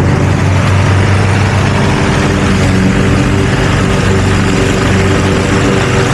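Lawn mower engine running steadily under load with an even, unchanging hum while cutting grass.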